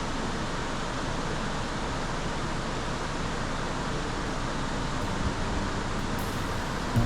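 Steady rushing background noise, even and unchanging, with faint music tones creeping in near the end.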